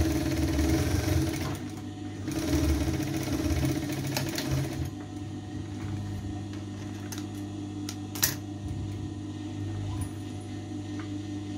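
Sewing machine stitching a seam in two runs over the first five seconds, then stopping, leaving a steady hum; a single sharp click about eight seconds in.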